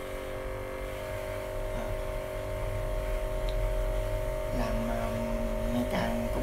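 Steady electric motor hum at a fixed pitch, with a man's voice briefly about four and a half seconds in.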